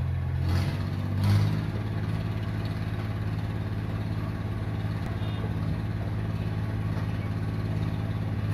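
Vehicle engine running steadily at idle, a low hum with two short louder swells about half a second and just over a second in.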